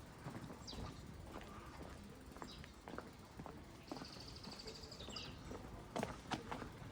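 Birds chirping, with a short falling call every couple of seconds and a brief rapid trill about four seconds in. Faint footsteps tap underneath.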